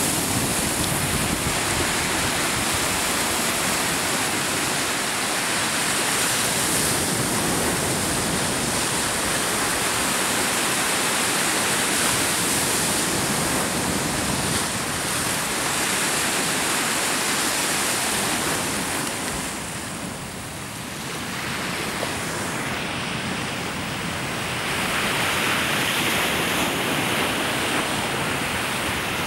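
Lake waves surging through floating slush ice and washing against an icy, snow-covered shore: a steady rushing wash that eases briefly about two-thirds of the way through.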